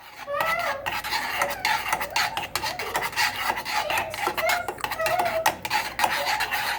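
A spoon stirring and scraping a thick cornstarch and sweetened-condensed-milk mixture around a saucepan, with repeated scraping strokes and a few short squeaks.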